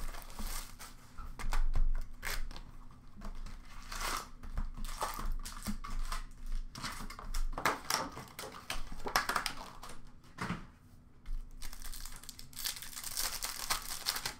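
Plastic shrink-wrap and hockey card pack wrappers crinkling and tearing in irregular rustles as the card boxes are unwrapped and the packs handled. A longer, denser stretch of tearing and crinkling comes near the end.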